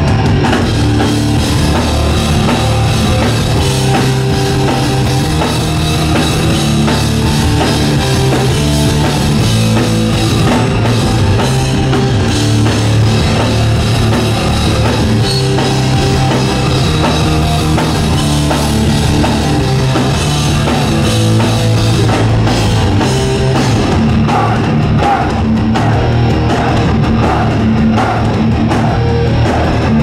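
Hardcore punk band playing live at full volume: heavily distorted electric guitars, bass and a drum kit.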